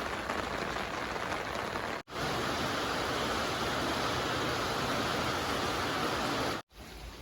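Heavy downpour: rain falling hard in a steady hiss. The sound cuts out abruptly about two seconds in and again near the end, and the stretch between the cuts is louder.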